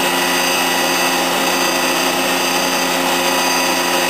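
1994 Makino A-77 horizontal machining center's 40 hp spindle spinning free with no cut, a steady, unchanging whine of several tones over an even machine hum.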